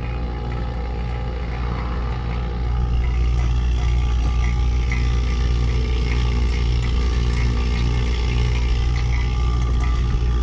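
Refrigerant vacuum pump running steadily with a low hum, evacuating an AC system after a leak repair. It gets louder about three seconds in.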